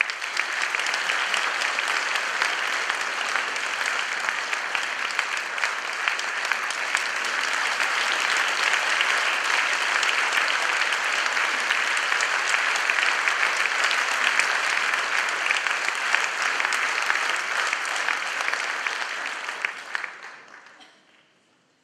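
Audience applauding steadily in a hall for about twenty seconds, then dying away near the end.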